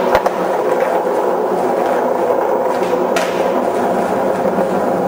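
Skateboard wheels rolling steadily over a concrete parking-garage floor, with one sharp click just after the start.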